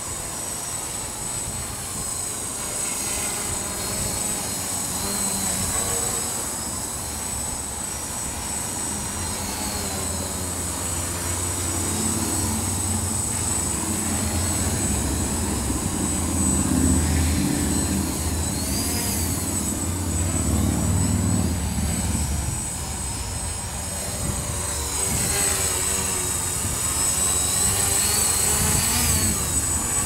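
Witespy quadcopter's electric motors and propellers whining steadily as it hovers and flies, the pitch rising and falling now and then as the throttle changes. A low wind rumble on the microphone swells in the middle and near the end.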